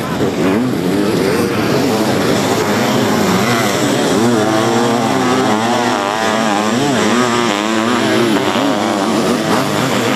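Racing sidecar motocross outfits' engines revving hard on a dirt track, the pitch swinging up and down again and again as the throttle opens and closes.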